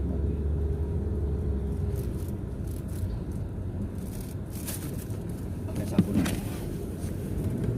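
Steady low engine rumble, with a short click about six seconds in.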